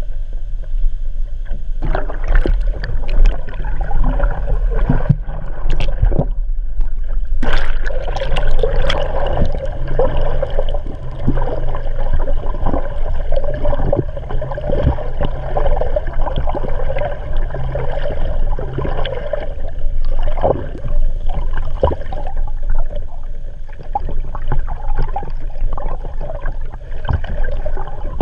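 Water gurgling and rushing around a camera held underwater beneath a moving kayak's hull, heard through the camera housing as a steady low rumble with frequent short knocks and splashes.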